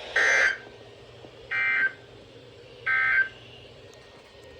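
Emergency Alert System end-of-message code: three short bursts of buzzing digital data tone, about a second apart. They mark the end of the weather warning broadcast.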